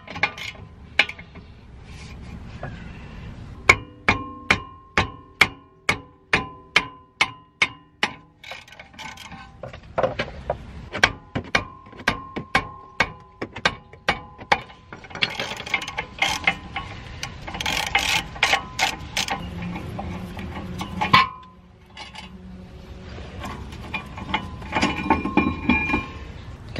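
Ratchet wrench clicking in runs of evenly spaced, ringing metallic clicks, about three a second, as the front brake caliper bracket bolts are backed out. Later comes a denser, irregular metallic clatter of tools on the bracket.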